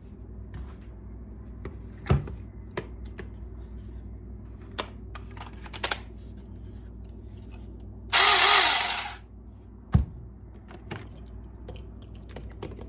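Scattered clicks and knocks of objects being handled, with two low thumps, and a loud hissing burst lasting about a second, about eight seconds in.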